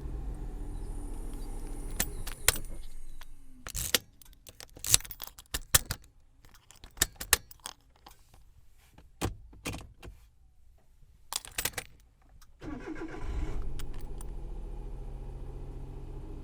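A vehicle engine idling, then shut off a few seconds in. Keys jangle and click in the ignition through a quieter stretch, and near the end the engine starts again, rises briefly and settles back to a steady idle.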